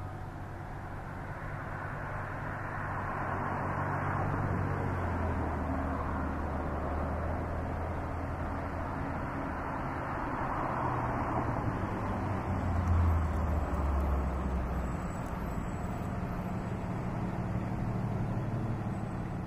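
A motor running under a steady rush of noise. Its low hum shifts in pitch about five seconds in and is loudest around thirteen seconds in.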